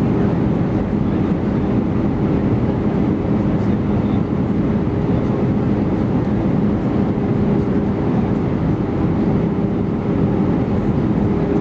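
Steady cabin noise inside an Airbus A319-131: the even hum of its IAE V2500 turbofan engines and rushing air, with a steady low drone throughout.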